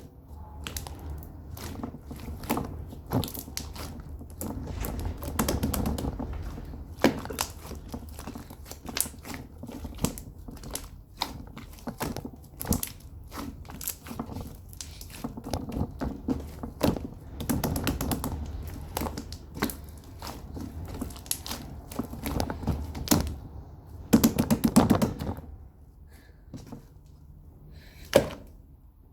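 Bubbly slime being squished and pressed by hand, making soft squelches with many irregular sharp clicks and pops of trapped air bubbles, in louder clusters now and then.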